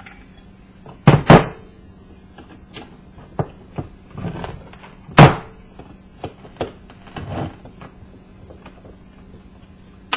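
Knocks and clunks from the metal parts of an old ceiling fan being handled. Two sharp hits come about a second in and the loudest about five seconds in, with lighter taps between them, over a faint steady hum.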